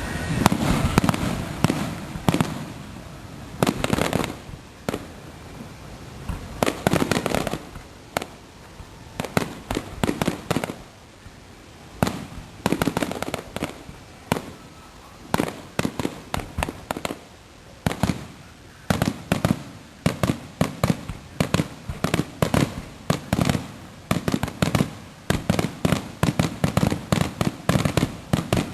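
Fireworks display with aerial shells bursting in sharp bangs. A dense cluster comes at the start, then scattered groups of bursts, and in the last third quick volleys of many bangs in a row.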